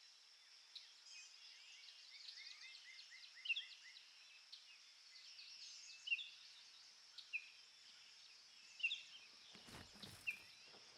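Birds chirping and whistling, one giving a quick run of repeated notes early on, over a steady faint high hiss. A brief low rumble comes about ten seconds in.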